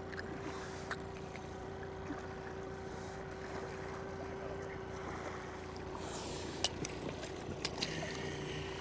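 A steady mechanical hum at one pitch over a low noise haze, with a few sharp light clicks and rattles in the second half.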